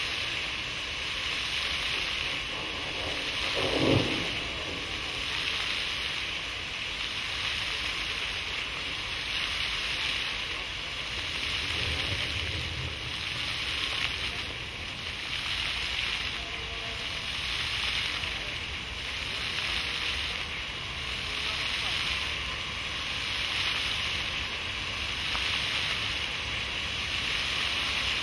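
Rows of jets on an interactive pavement fountain spraying and splashing onto wet paving: a steady water hiss that swells and fades about every two seconds. One short pitched sound stands out about four seconds in.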